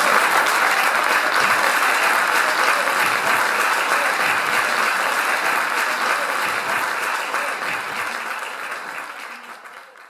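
Audience applauding: dense, steady clapping from many hands, fading away over the last three seconds.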